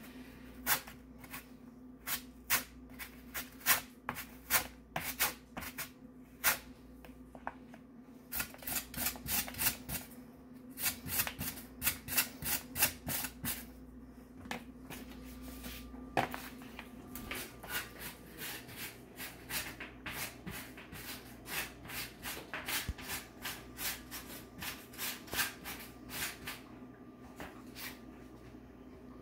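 Raw potato being grated by hand on a metal grater: repeated scraping strokes at an uneven pace, sometimes in quick runs, thinning out near the end.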